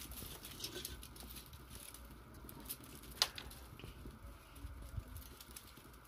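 Dry brushwood twigs crackling with small, irregular clicks as they catch in a wood fire, with one louder crack about three seconds in.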